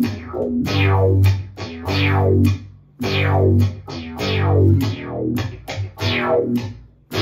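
Electric guitar played through a Digitech Dirty Robot synth pedal: a run of short synth notes, each starting bright and sweeping down as the envelope filter closes. There are brief breaks about three seconds in and near the end.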